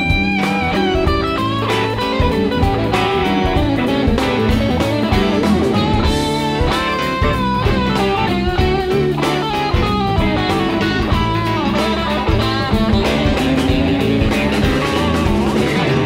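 Live rock band playing a blues-rock instrumental passage: an electric guitar plays a single-note lead with bent, wavering notes over bass, drums and keyboards.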